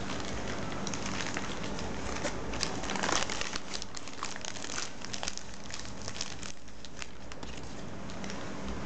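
Plastic bags crinkling and rustling as they are handled, in a run of quick crackles that is busiest about three seconds in and thins out after about seven seconds, over a low steady hum.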